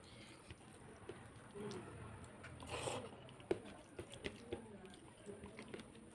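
Fingers mixing rice and curry gravy by hand on a paper plate: soft wet squishing and scraping with small scattered clicks. A short hiss comes about halfway through, followed by a sharper tick.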